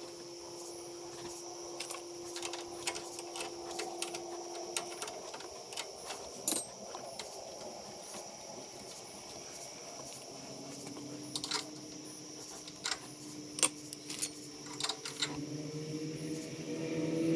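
Scattered light metallic clicks and clinks, as of hand tools being handled, over a faint steady hum that grows louder near the end.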